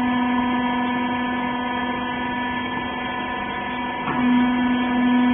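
Rag baler's hydraulic power unit, an electric motor and pump, running with a steady hum. About four seconds in, the hum breaks off briefly and comes back louder.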